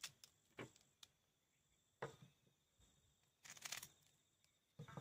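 Faint short scrapes of a kitchen knife peeling a white radish, a few separate strokes with a small cluster about three and a half seconds in.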